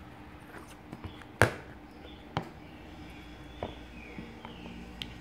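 A few sharp knocks and taps of a small plastic fork on a high-chair tray, the loudest about a second and a half in.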